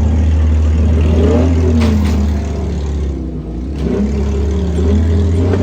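Demolition derby car engines running loud and revving, the pitch wavering up and down, with a sharp bang about two seconds in.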